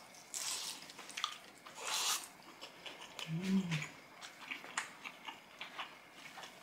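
Close-miked chewing of sauced, crispy fried chicken: many small wet mouth clicks, with two louder noisy crunching bites, one near the start and one about two seconds in. A short hummed "mm" rises and falls about three and a half seconds in.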